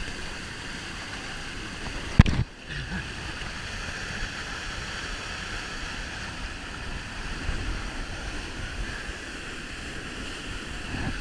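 Waterfall rushing steadily, an even hiss of falling water. A single sharp knock sounds about two seconds in.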